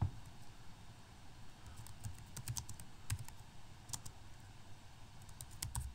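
Typing on a computer keyboard: a run of faint, irregular key clicks, most of them in the second half.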